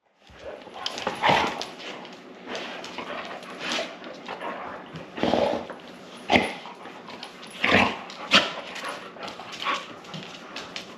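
Golden retriever making an irregular run of dog sounds, with a few sharp clicks about six and eight seconds in.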